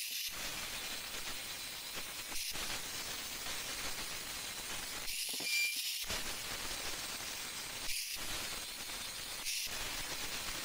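Angle grinder grinding down weld beads on a steel plate: a steady, high-pitched hissing grind with a few brief drops in level.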